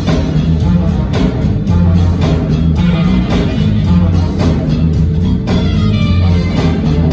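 Live jazz band playing: drums keep a steady beat of about three hits a second under a heavy electric bass line, with keyboards and saxophone.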